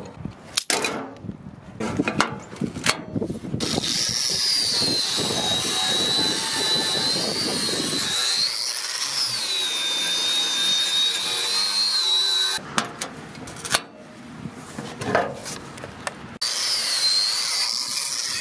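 Angle grinder with a wire cup brush scouring rust off an old broadaxe head, a loud steady rasp with a high motor whine that sags and rises as the brush is pressed and eased. The grinding stops for a few seconds of metal knocks and clanks as the head is handled on the steel table, then starts again near the end. A few sharp knocks come before the grinder first starts.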